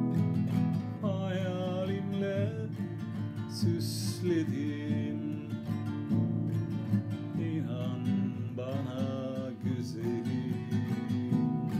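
Nylon-string classical guitar playing an arpeggiated accompaniment in waltz time, in the nihavent makam. A voice sings along in two short phrases, about a second in and again near the end.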